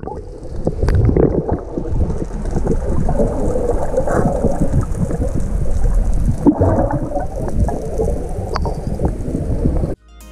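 Muffled underwater rushing and crackling of bubbles heard from below the surface, with swimmers splashing in and kicking down through the water. It cuts off abruptly near the end, where guitar music comes in.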